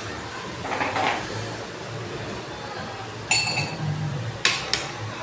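Tableware clinking as a meal is handled: a sharp clink with a short ring about three seconds in, and another knock a second later.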